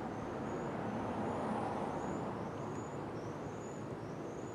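Steady outdoor background noise with a faint, short, rising high chirp repeating roughly every half second.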